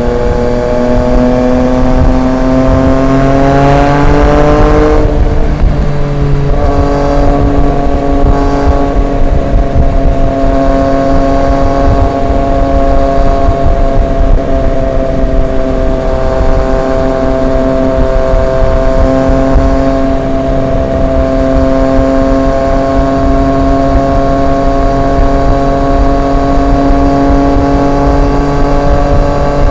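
Triumph Street Triple 765 RX's three-cylinder engine through an SC Project S1 exhaust, revs climbing for about five seconds, then falling sharply and settling into a steady run that rises slowly in pitch.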